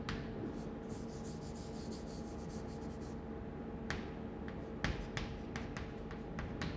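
Chalk writing on a chalkboard: a run of quick, scratchy strokes, then a few sharp taps of the chalk against the board, over a faint steady hum.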